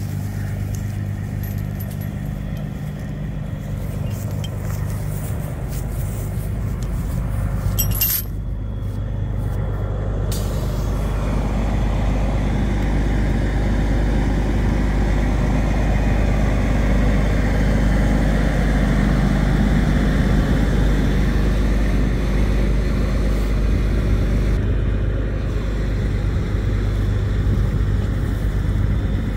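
Heavy wrecker tow truck's diesel engine running steadily at a constant low hum. It grows louder and fuller from about ten seconds in.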